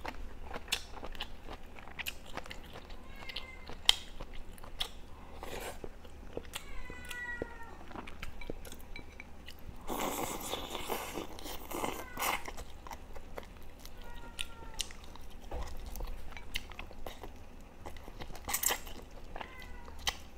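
Close-miked eating sounds: chewing and biting into pieces of chewy duck meat, with wet mouth smacks and clicks throughout and a longer noisy slurp about halfway through.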